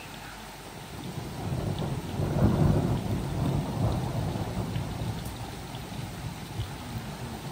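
A roll of thunder that builds about a second in, peaks a second or so later, then slowly rumbles away, with rain falling steadily throughout.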